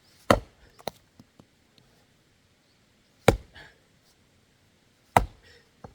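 An axe chopping into a firewood log: three heavy blows about two to three seconds apart, with a lighter knock after the first. The log is not yet splitting.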